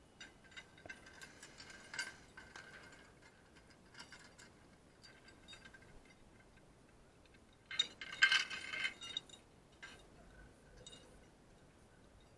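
Metal zipline hardware (carabiners and trolley fittings) clinking and clicking at the launch platform, with scattered small clicks and a louder burst of clinking about eight seconds in.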